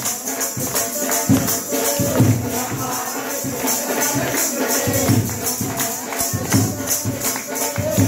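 Live devotional music at a temple chowki: a drum and steadily jingling percussion keep the beat under a melody line.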